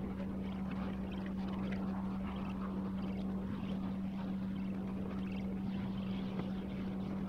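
A steady low hum, with faint rubbing and rustling as a gloved hand spreads lube around the seal bores inside an aluminium transmission case.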